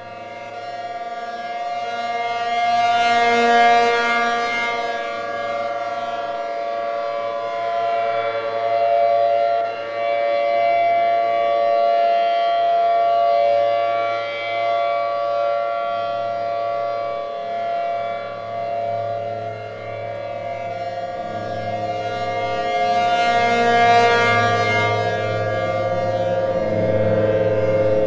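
ACA P50 outdoor warning siren sounding a steady alert tone at a level pitch. It swells loudest about three to four seconds in and again near the end.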